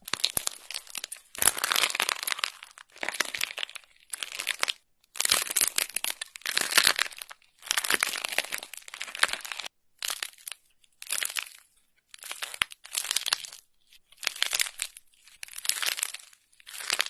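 Crunchy slime being squeezed and pressed, crackling and popping in repeated bursts of dense clicks, each a second or less long, with short pauses in between.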